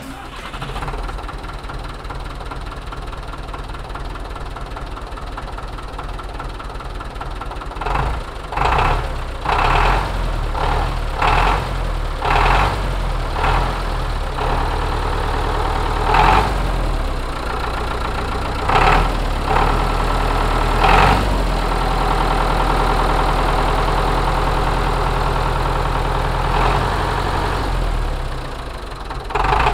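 The 1952 David Brown 900 tractor's four-cylinder engine is idling steadily. About a quarter of the way in it is revved in a series of short throttle blips, and near the end it is held at a higher steady speed for several seconds.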